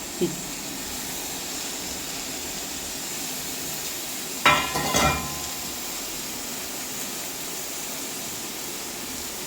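Onion and spice masala frying in a pan with a steady sizzle, broken by a sharp metal clink with a brief ring about four and a half seconds in.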